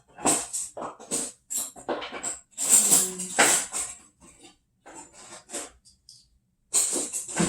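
Metal kitchen utensils clattering and jingling, struck together in irregular clusters of clinks as someone rummages through them to find a whisk.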